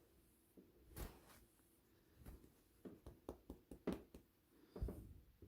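Near silence: quiet room tone with a few faint, short clicks and knocks scattered through it.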